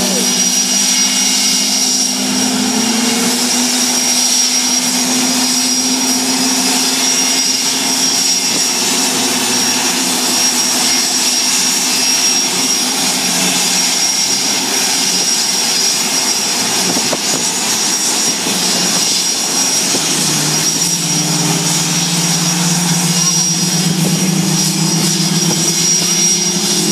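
Jet engines of Boeing F/A-18 Hornets, General Electric F404 turbofans, running on the ground after start-up: a loud, steady jet roar with a high, constant whine. The lower engine tones shift in pitch about twenty seconds in.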